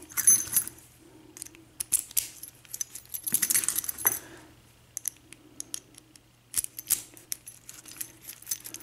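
Metal keys and lock cylinders being handled: scattered sharp clicks and clinks, with two short bursts of key jangling, near the start and about three seconds in.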